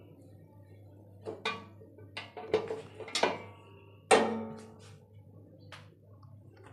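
Metal springform cake tin knocking and scraping against the inside of a large steel cooking pot as it is lifted out: several clanks, some with a brief metallic ring, the loudest about four seconds in.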